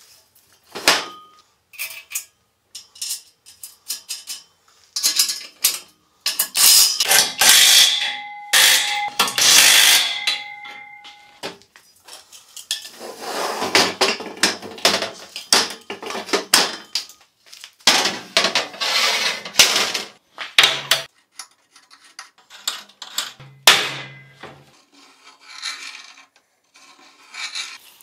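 Workshop hand work: irregular bursts of scraping and rubbing, broken by sharp knocks and clinks, with a few brief ringing tones about a third of the way through.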